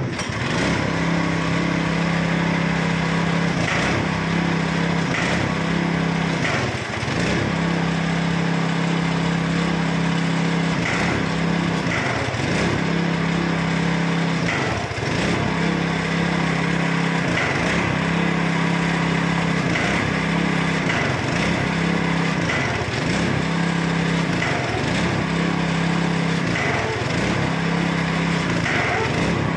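Small engine driving the hydraulic pump that raises a lowbed trailer's loading ramps, running steadily under load. Its pitch sags briefly and recovers about every one and a half to two seconds as it labours.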